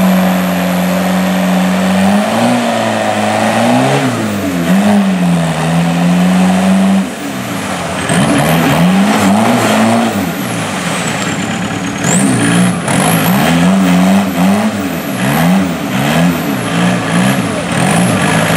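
Lifted Suzuki Samurai's engine running steadily, then revving up and down again and again as it churns through a deep mud hole, its big mud tires spinning and throwing mud. The revs drop off briefly about seven seconds in before it climbs again.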